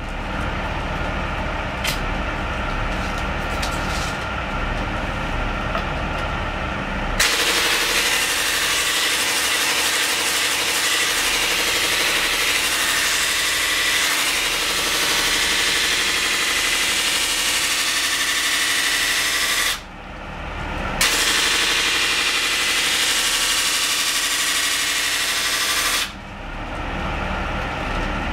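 Large fine-grinding wheel of a knife-sharpening stand running with a steady hum. About seven seconds in, a knife blade held against the spinning wheel sets off a loud, even grinding hiss that breaks off for about a second near the twenty-second mark, then resumes and stops a couple of seconds before the end.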